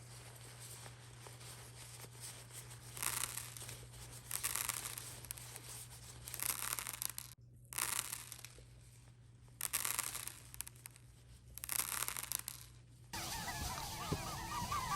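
Something torn in a series of about six separate rips, each roughly a second long, over a steady low hum. Near the end this gives way to a different sound with a wavering pitch.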